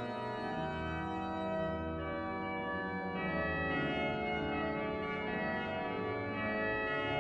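Organ music playing held chords that move from one to the next every second or so.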